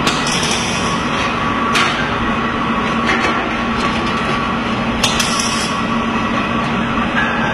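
Steady workshop machinery noise with a constant hum, broken by a few short sharp knocks.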